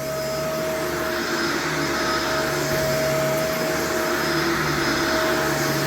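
Shark Vertex upright vacuum cleaner running on carpet: a steady motor whine over an even rush of suction noise.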